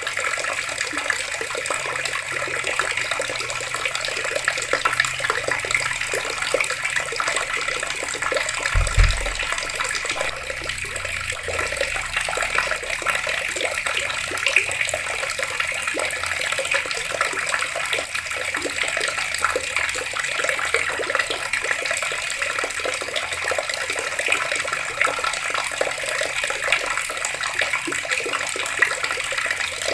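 Water running steadily from taps, a continuous splashing hiss with no pause, and a brief low thump about nine seconds in.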